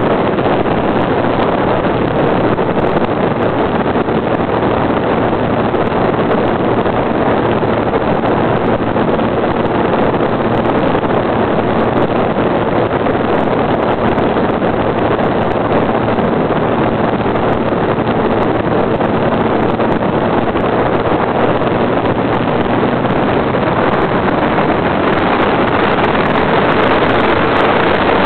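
Radio-controlled model airplane's motor running steadily at cruise power, heard from the onboard camera under heavy wind rush over the microphone. The sound stays level throughout, a faint steady drone beneath the wind noise.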